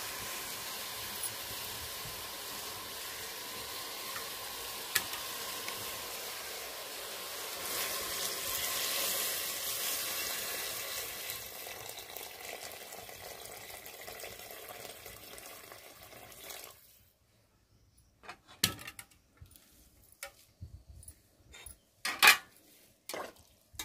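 Hot water poured into a steel pot of frying chicken, which sizzles with a steady hiss that swells as the water goes in. The hiss cuts off suddenly about two-thirds of the way through, and a few sharp knocks follow.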